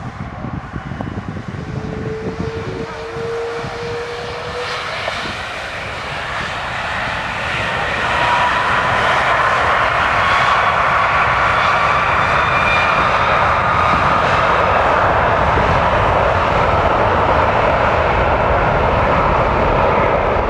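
Aircraft engines running up, with a slowly rising whine over a roar. The sound grows louder about 8 seconds in and then holds steady and loud.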